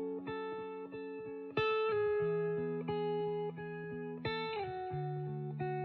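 Background music: an instrumental passage of a pop song, with picked notes over held chords that change about a second and a half in and again about four seconds in.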